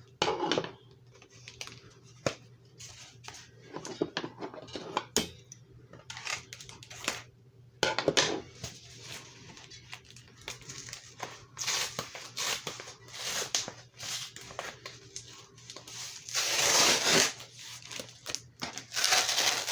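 Mail-order package being opened by hand: tape and packaging tearing and crinkling, with scattered small knocks and rustles, and two longer, louder rips in the last few seconds.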